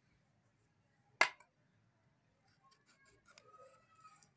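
Kitchen knife cutting through a potato on a ceramic plate: one sharp click of the blade against the plate about a second in, then a run of faint cutting clicks and scrapes of the blade on the plate near the end.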